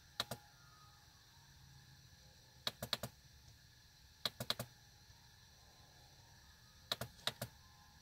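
Computer mouse-button clicks, fired as quick double-clicks to open folders: four short bursts of two to four sharp clicks about every two seconds.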